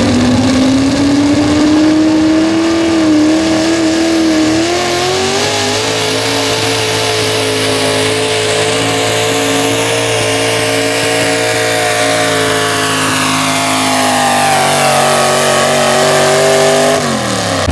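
Pro stock mini pulling truck's engine at full throttle under load as it drags the weight-transfer sled. The revs climb over the first few seconds, hold high and steady through the pull, then drop sharply near the end.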